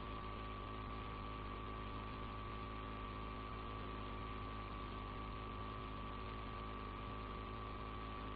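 Steady electrical mains hum and hiss in the recording, with a steady high whine above it.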